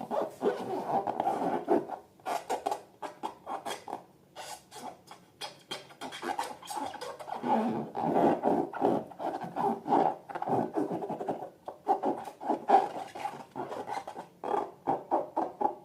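Slime being squished and worked by hand: a dense, irregular run of sticky crackles and squelches, with a few brief pauses.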